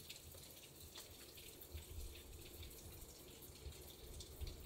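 Near silence: faint outdoor background hiss with a few soft scattered ticks.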